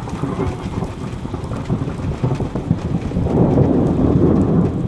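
Thunder rumbling over falling rain, the rumble swelling louder about three seconds in.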